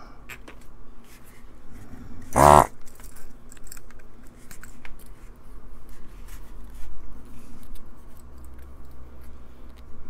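Desoldering gun being handled, with light clicks and knocks over a low steady hum, and one short buzz from its vacuum pump about two and a half seconds in.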